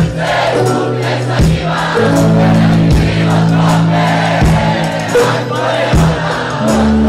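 Live band music with keyboard and electric guitar over a slow, steady drum beat, with a large crowd singing along.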